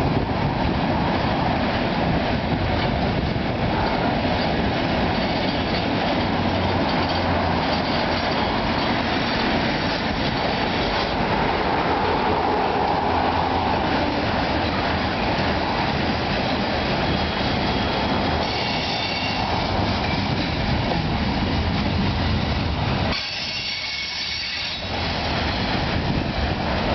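Freight cars of a CSX train rolling past: a steady rumble and rattle of steel wheels on rail, with a faint high wheel squeal twice in the second half.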